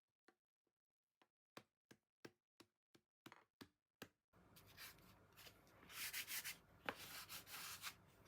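Hand work on a bread-making bench: a run of light taps about three a second, then a scratchy rubbing rustle that swells over the last few seconds.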